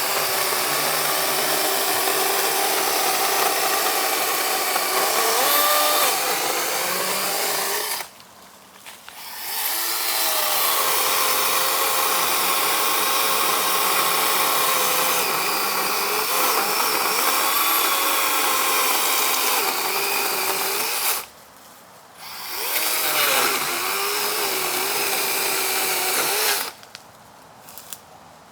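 Kobalt 24-volt electric chainsaw running steadily with a high motor whine, cutting into a tree trunk, its pitch sagging as it loads up in the cut. It stops twice, at about 8 and 21 seconds in, and restarts each time, then stops again near the end; the user says it has bogged out twice.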